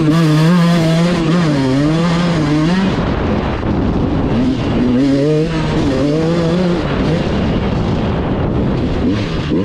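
Dirt bike engine being ridden, revving up and down with its pitch rising and falling, and rougher, noisier stretches between the revs.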